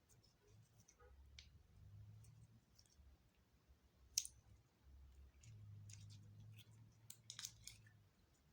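Clear slime being mixed and squished by hand: faint, sticky clicks and small pops. One sharper pop comes about four seconds in, and a quick run of clicks near the end.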